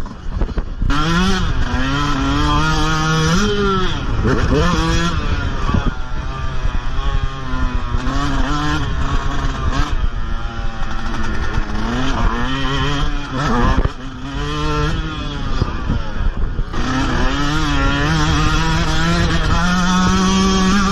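Dirt bike engine ridden hard in a motocross race. Its pitch climbs and drops again and again as the throttle is opened and shut through the gears, with a few brief dips where the rider rolls off.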